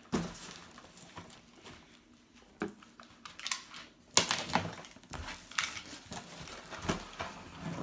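A cardboard box being handled and its packing tape slit with a utility knife, then its flaps opened: scattered scrapes, taps and rustles of cardboard, the sharpest about four seconds in.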